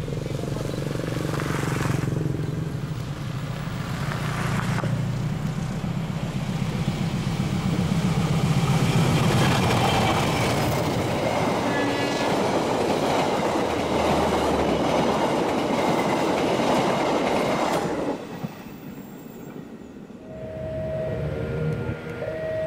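Passenger train passing close by: a diesel locomotive's low engine drone, then the coaches rolling past with wheels clattering on the rails. The sound cuts off suddenly about 18 s in. A few seconds later a train horn begins sounding steadily near the end.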